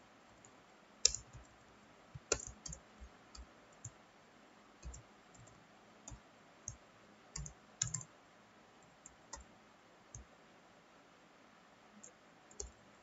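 Computer keyboard keys being typed slowly, irregular single clicks and short runs of clicks with pauses between them.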